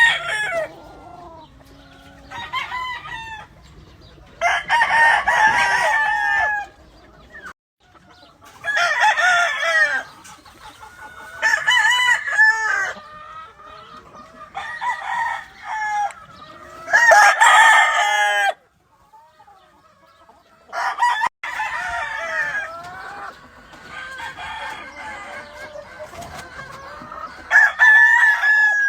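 Roosters crowing again and again, about ten crows in all, one every two to three seconds, with quieter clucking between them.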